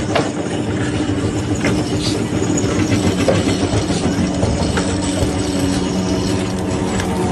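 A heavy engine running steadily, with a constant hum and a dense rattling, clanking clatter.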